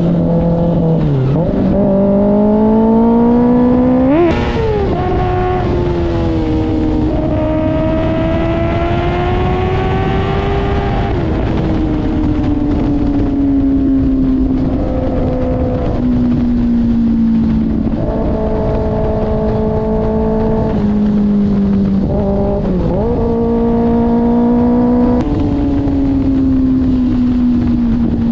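2024 Kawasaki ZX-6R's inline-four engine running through an IXIL aftermarket exhaust, its pitch drifting up and down as engine speed changes. About four seconds in it rises sharply and then drops, with another quick dip and recovery near twenty-three seconds.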